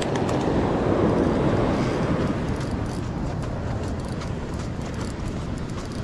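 Steady rush of breaking surf mixed with wind on the microphone, swelling a little in the first couple of seconds and then easing off.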